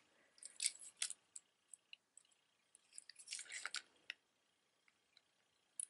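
Faint handling noise: light rustles and small clicks as a pair of dangle earrings on a cardboard display card is turned in the hands, in two short clusters about a second in and again around three seconds in.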